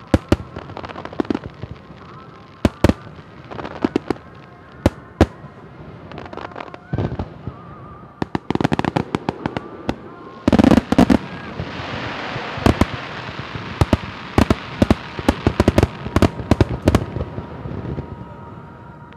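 Fireworks display: scattered sharp bangs at first, then from about halfway a dense barrage of rapid cracks and crackling, easing off near the end.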